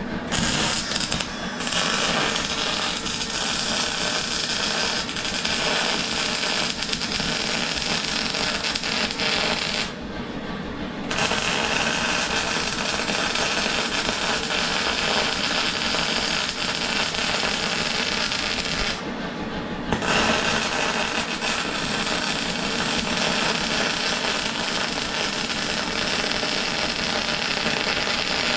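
MIG welder arc crackling and hissing in long continuous runs. It stops twice for about a second as the torch trigger is let go, then starts again.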